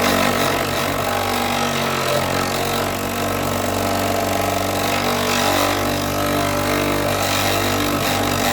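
Electric power tool running steadily as it grinds a wooden walking stick, its steady motor hum under a hiss from the abrasion. The friction is hot enough to scorch the wood.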